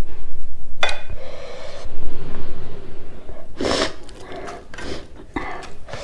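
Close-miked fingers kneading and mixing rice on a steel plate, with a short metallic clink of a spoon against the dish about a second in. A sharp breath comes a little past the middle.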